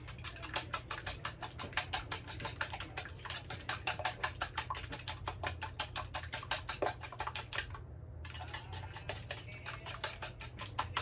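Eggs and milk being whisked by hand in a bowl: rapid, even clicking of the utensil against the bowl, with a brief pause about eight seconds in.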